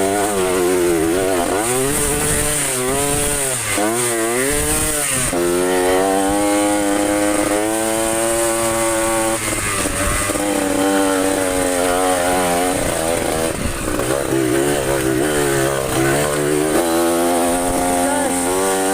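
Trail motorcycle engine revving up and down under load on a slippery trail, its pitch swinging repeatedly through the first few seconds, then holding steadier for a while before swinging again near the end.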